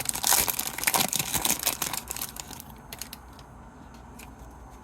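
Hockey trading cards being handled and flipped through, a quick run of rustling and clicking card-against-card strokes that dies down after a couple of seconds to a few faint ticks.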